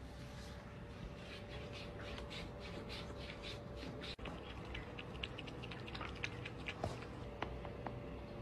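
A cat lapping water from a drinking glass: a run of small wet laps, about three a second, turning quicker and crisper partway through, with a few sharper ticks near the end. A faint steady hum runs underneath.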